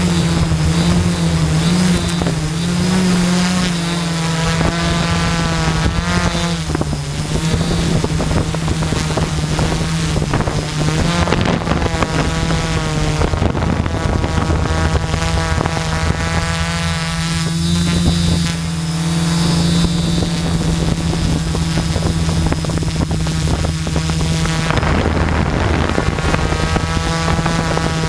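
Brushless motors and propellers of a 550 mm quadcopter, heard from the camera on board as it descends: a steady drone with whining tones that bend up and down as the motors change speed, over wind noise on the microphone.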